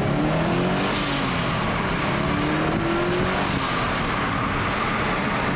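2004 Subaru WRX STi's turbocharged 2.5-litre flat-four accelerating under boost, with the XS-Power SS Autochrome blow-off valve venting in a short whoosh about a second in as the throttle closes, then the engine pulling and rising in pitch again.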